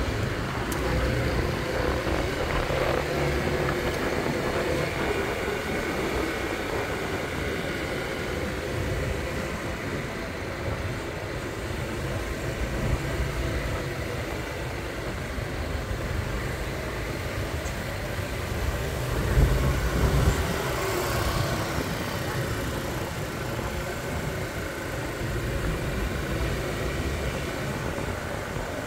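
Motorbike running while riding along a street, with steady road and wind rumble and passing traffic. A brief louder rumble comes about two-thirds of the way through.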